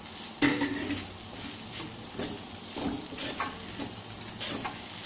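Metal spatula stirring grated coconut into mashed tapioca in a kadai, scraping against the pan in uneven strokes, over a light frying sizzle.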